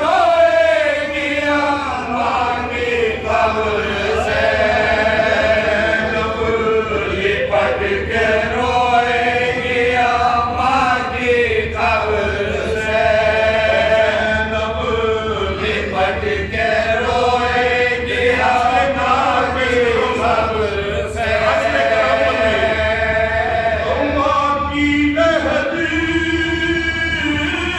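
A group of men chanting a marsiya, an Urdu elegy for the martyrs of Karbala, in unison around a lead reciter, in long drawn-out melodic phrases with no instruments.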